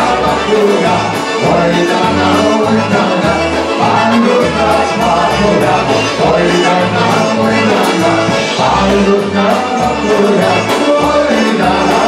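Live polka band with accordion, trumpet, bass guitar and drums playing a polka: a bouncing low bass line under a steady beat with regular cymbal strikes.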